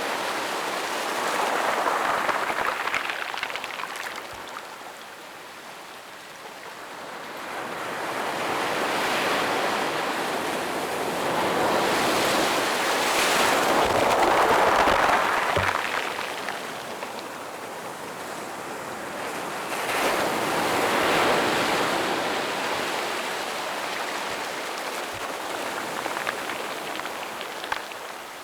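Small ocean waves breaking gently on a sandy beach and washing up the shore, the surf swelling and fading in slow surges every several seconds.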